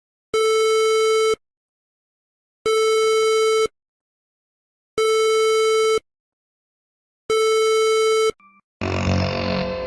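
Electronic emergency alert tone sounding four times, each beep about a second long and one steady pitch, with a little over a second of silence between beeps. Music starts near the end.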